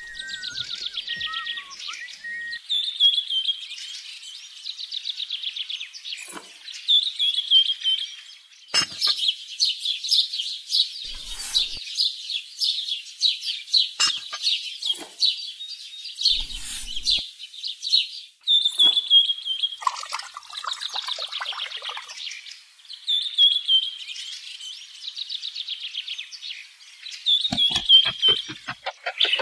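Birds chirping: a rapid, high trill repeated in short phrases every few seconds, each ending on a falling note.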